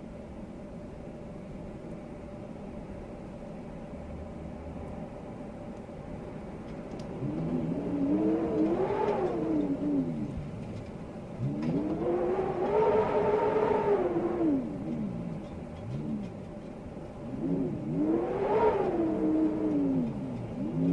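Storm wind rushing steadily, then howling in three gusts, each a pitched whistle with overtones that rises and falls over a couple of seconds.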